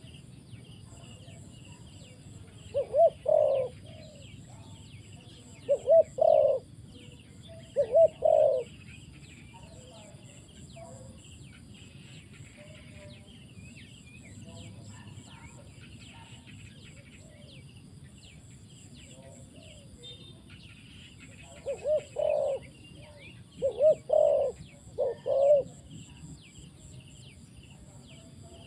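Spotted dove cooing in two bouts of three phrases: one a few seconds in and another about two-thirds of the way through. Faint high chirping runs steadily underneath.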